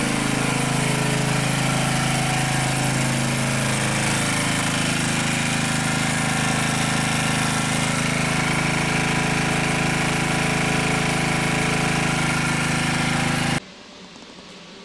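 Small portable 1 kW generator engine running steadily under load, supplying the heating system's boiler pump, fans and lights during a power outage. Near the end the sound cuts off abruptly to a much quieter steady hum.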